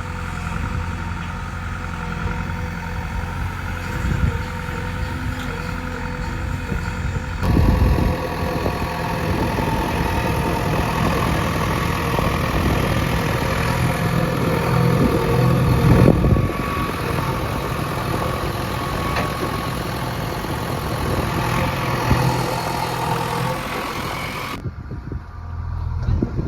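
JCB 3DX backhoe loader's diesel engine running steadily. The sound changes abruptly about seven seconds in, turning louder and rougher, and again near the end.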